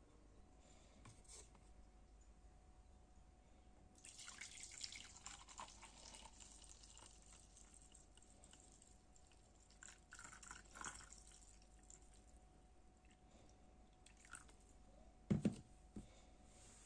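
Faint dripping and trickling of liquid that comes and goes, then a single knock near the end.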